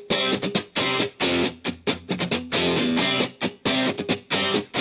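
Background music led by guitar, with short chords played in a quick stop-start rhythm.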